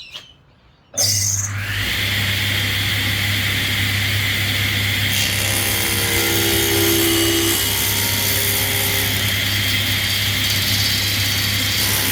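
Table saw switched on about a second in, its motor spinning up and then running steadily.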